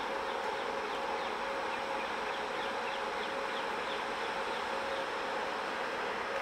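Electric locomotive hauling an inspection car slowly past: a steady electric hum, with short falling chirps above it at about three a second.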